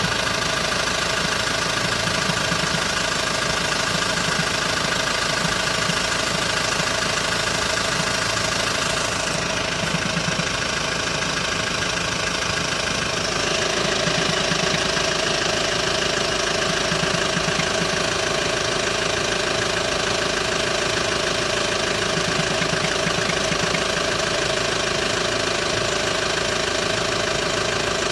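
Hyundai ix35 diesel engine idling cold during warm-up, with an irregular knock that comes only while the engine is cold and goes once it is warm; the dealer could not find the cause. The tone of the running shifts slightly about nine seconds in and again about thirteen seconds in.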